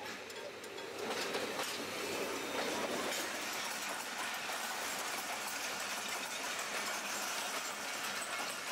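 A train passing close by, its wheels clattering over the rail joints in a steady rushing rumble that grows louder about a second in.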